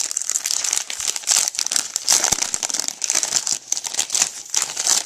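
Wrapper of a trading-card box topper being pulled and torn open by hand, a continuous run of crinkling and rustling with small tearing sounds.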